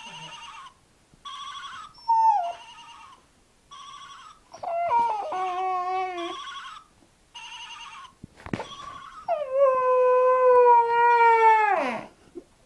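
Briard dog howling: a short falling whine about two seconds in, a wavering howl around five seconds, then a long steady howl, the loudest, that drops away at the end. Underneath, an electronic phone ringtone repeats in short pulses through the first two-thirds.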